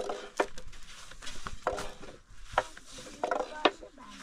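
Thin wooden rolling pin knocking against a round wooden board as flatbread dough is rolled out, with about five sharp, irregular taps.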